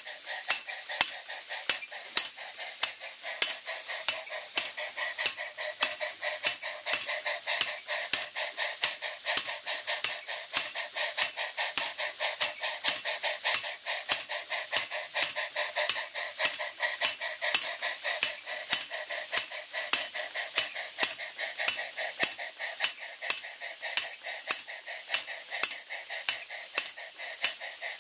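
Jensen 20G live-steam model engine running, with a steady steam hiss under an evenly repeating sharp metallic tapping from the belt-driven DIY model steam hammer.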